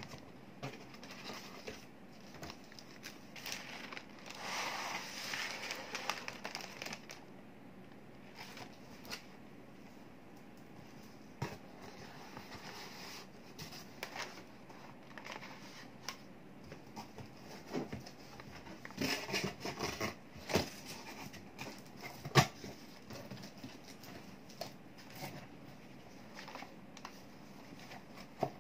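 Packaging being handled: plastic wrap and air-column cushioning crinkling and cardboard boxes rustling, with scattered knocks of cardboard set down on a wooden desk. There is a stretch of rustling about five seconds in, and the sharpest knock comes about two-thirds of the way through.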